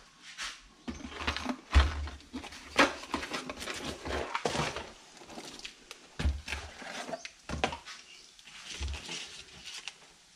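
Cardboard box rustling and scraping as it is opened and a motorcycle ignition stator plate is lifted out of it, with a few dull knocks of parts set down on a cardboard-covered bench.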